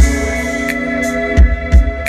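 Live electronic hip-hop music: a held synth chord over deep kick drums that fall in pitch. The kicks hit at the start and twice more around a second and a half in, with a sharp snare-like hit between them.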